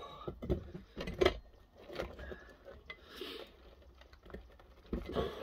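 A few scattered knocks and clinks of a scrapped refrigerator compressor's steel casing being gripped and worked by hand. The loudest comes a little over a second in.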